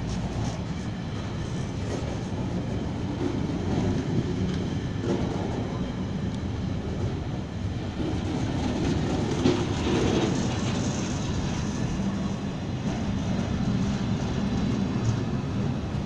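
Freight container and tank wagons rolling past at close range: a steady rumble and clatter of steel wheels on the rails. There is a brighter, slightly louder stretch about ten seconds in.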